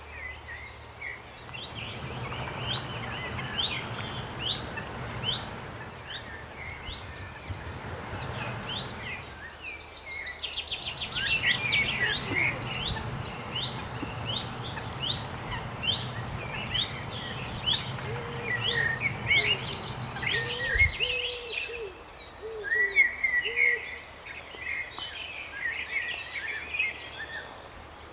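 Birds singing by a lake: a long series of short, quickly repeated chirps, with a rapid trill partway through and some lower calls later on, over a steady low rumble in the background that stops abruptly about three-quarters of the way in.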